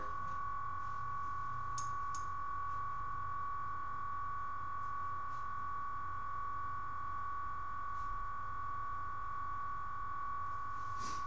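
A steady, high-pitched electrical whine with a low hum beneath it, with two faint ticks about two seconds in.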